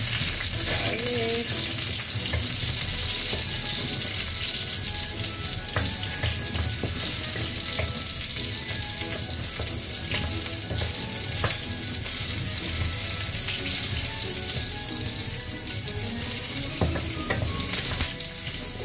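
Garlic cloves sizzling steadily in hot oil in a wok, stirred with a wooden spatula that clicks against the pan now and then.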